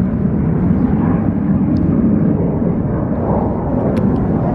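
Jet aircraft engine noise: a loud, steady, deep rumble from jets flying over.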